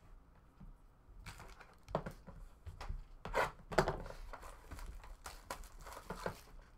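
Cardboard trading-card boxes being picked up and handled on a table: a run of scattered taps and knocks with light rustling, the loudest knocks near the middle.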